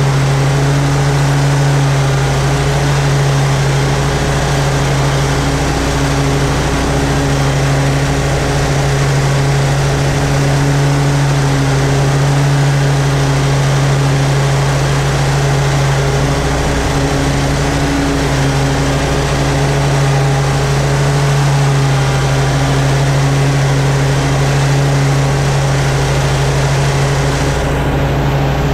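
Toro Z-Master 4000 zero-turn mower running at mowing speed with its blades engaged: a loud, steady, constant low engine hum with no changes in pitch.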